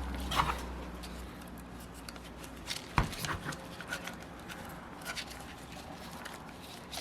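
Small handling noises on a workbench: scattered light clicks and rubbing, with one sharper click about three seconds in. A low hum fades out in the first second or so.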